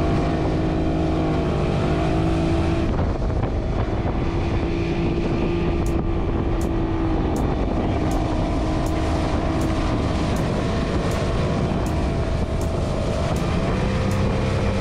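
Motorboat engine running steadily under a heavy rush of wind and water noise, its pitch shifting a little early on. From about six seconds in there is a faint regular tick roughly every three quarters of a second.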